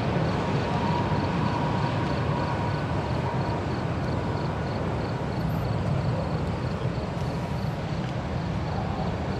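Twin-engine jet airliner on final approach to land: a steady low rumble of its engines, with a faint steady whine over it in the first half.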